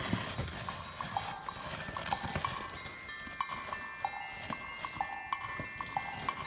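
A dog's claws clicking on a tile floor as it walks, several uneven clicks a second, with faint chime-like music behind.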